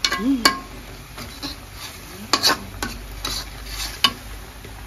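A utensil stirring spice paste with galangal and lime leaves as it sizzles in a pan, with a handful of sharp scrapes and clinks against the pan.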